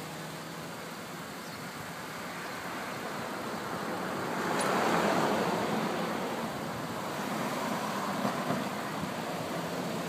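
Street traffic: steady road noise, with a vehicle passing and growing loudest about halfway through before easing off.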